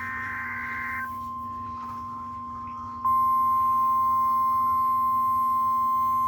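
Emergency Alert System severe thunderstorm warning: the end of a SAME data header burst, a buzzy two-tone warble that stops about a second in, over a steady single-pitch 1050 Hz Weather Radio alert tone. The tone jumps much louder about three seconds in, announcing the warning message that follows.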